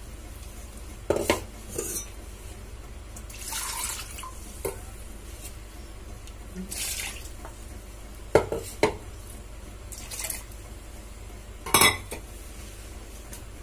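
Water poured from a steel vessel into an earthenware curry pot, with brief swishes of liquid and about half a dozen sharp clinks of metal against the pot, the loudest near the end.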